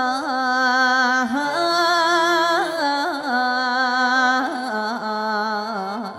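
Female mor lam singer holding a long ornamented vowel, the drawn-out 'o la naw' that opens a lam glawn, with sliding and wavering turns between held notes over khaen accompaniment.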